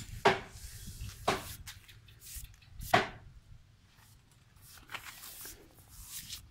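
Three sharp knocks, two about a second apart and a louder one about three seconds in, followed by soft rustling near the end.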